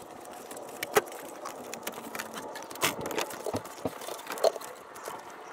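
Scattered clicks and light knocks of hands unclipping a wire from the radiator fan, with one sharp click about a second in and a few smaller ones after.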